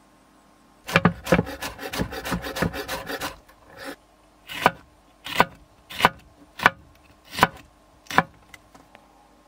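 Kitchen knife chopping on a wooden cutting board: a quick run of chops lasting about two and a half seconds, then six separate, slower slices through a jalapeño pepper, about one every two-thirds of a second.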